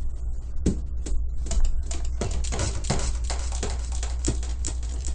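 Light clicks and clatter of household items being handled and set down, coming faster from about two seconds in.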